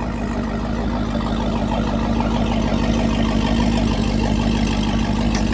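Boat engine running at low speed: a steady, even hum that grows slowly louder as the boat comes in. It sounds sweet.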